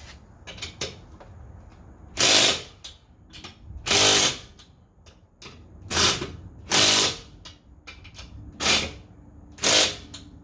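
A tool working on the car in six short mechanical bursts, about a second and a half apart, with a metallic ratcheting quality.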